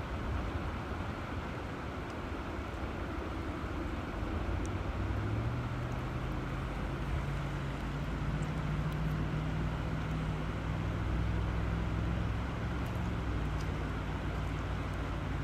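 River water flowing steadily, with a low steady hum underneath that steps in pitch a few times.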